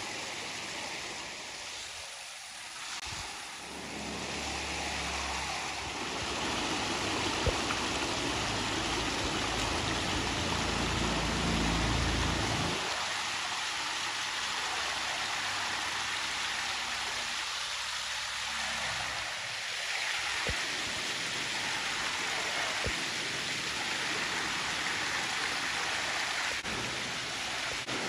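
Small rocky stream flowing over boulders, a steady rush of water, with a low rumble through the first half.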